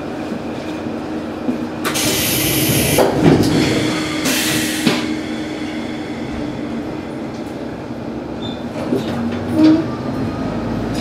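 Diesel railcar idling at a standstill, heard from the driver's cab: a steady engine hum, with two loud hisses of compressed air about two and four seconds in and a few clicks.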